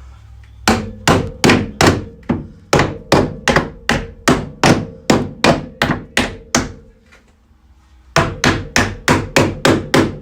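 A hammer striking the car's sheet-metal inner body structure in a steady run of about three blows a second, each with a metallic ring, to work a dented section back out. After a pause of about a second and a half, a second, slightly quicker run of blows follows.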